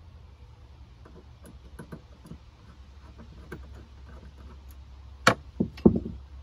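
Light clicks and ticks of a screwdriver and small wire terminals being worked on a battery shunt's terminals, with three sharper, louder clicks near the end.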